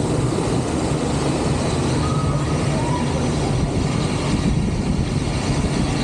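Steady rushing rumble of water and wind around a rapid-river raft boat as it floats along, with a couple of faint short squeaks about two and three seconds in.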